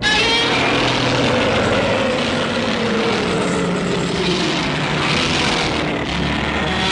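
Film sound effect of a loud, steady engine-like rushing noise. It cuts in suddenly, and a tone in it slides down in pitch in the middle.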